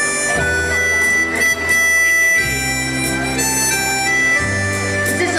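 Instrumental break played on an electronic keyboard: a sustained melody line over held chords and a bass line, the chords changing about every two seconds.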